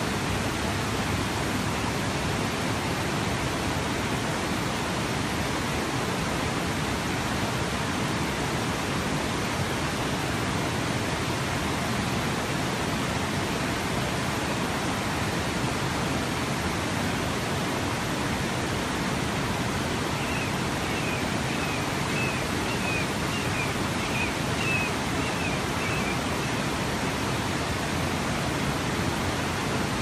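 The San Marcos River rushing steadily over a low weir into white-water rapids. About two-thirds of the way in, a quick run of high chirps sounds briefly over the water.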